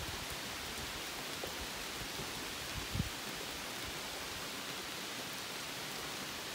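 Steady rain falling on forest foliage, an even hiss, with two soft low thumps, one right at the start and one about three seconds in.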